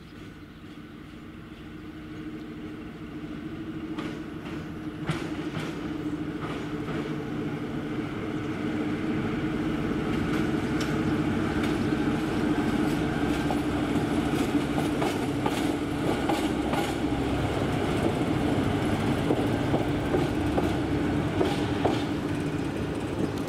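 Electric freight locomotive running through a station: a steady hum over a rumble, with wheels clicking on the rails. It grows louder over the first ten seconds, then holds steady.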